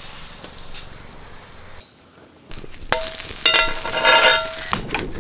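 Rice roti cooking on a hot iron tawa over a wood fire, with a faint, even sizzle. About three seconds in, a knock, then a metal spatula scraping on the tawa with a ringing, squealing tone.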